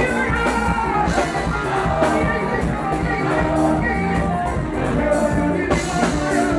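Live Ghanaian gospel band playing an upbeat song with a steady drum beat, a woman singing lead through the stage sound system.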